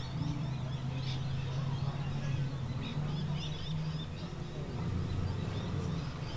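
Small birds chirping over and over in short calls, above a steady low hum.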